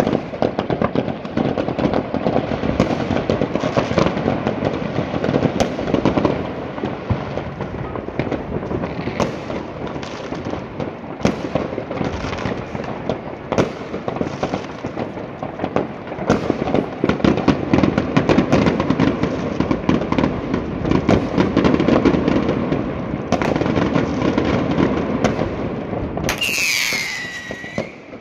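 Many fireworks and firecrackers going off at once across a city: a loud, continuous crackling and popping with many sharp bangs. Near the end a whistle falls in pitch.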